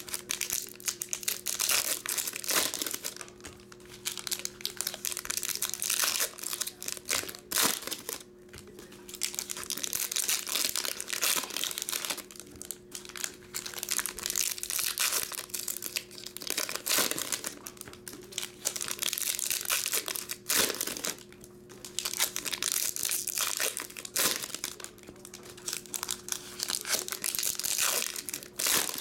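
Foil wrappers of Topps Chrome trading-card packs crinkling and tearing as the packs are ripped open and handled by hand, in repeated bursts with short pauses between them.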